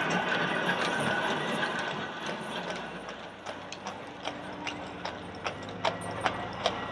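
Hooves of a heavy draught horse clip-clopping on the road as it pulls a horse tram, with the rattle of the tramcar's wheels running along street rails. The passing tram is loudest at first and fades, while the hoof strikes grow sharper near the end.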